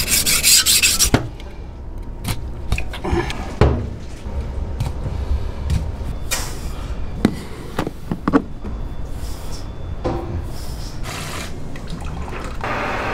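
Kitchen knife being sharpened on a whetstone with quick scraping strokes for about the first second. After that come scattered clicks, taps and knocks of knife work on raw pig's trotters in a stainless steel sink, and near the end water starts running from a tap.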